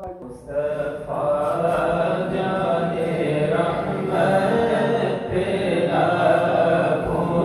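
Men chanting a devotional recitation together. The chant swells up about a second in and carries on in long, held melodic lines.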